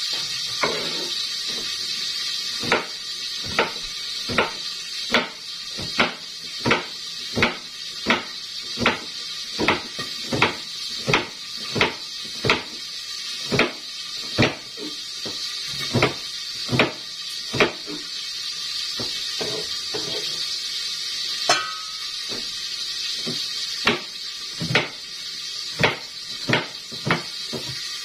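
Kitchen knife chopping ampalaya (bitter gourd) on a cutting board: sharp knocks of the blade on the board, a little more than once a second, pausing for a few seconds past the middle, over a steady hiss.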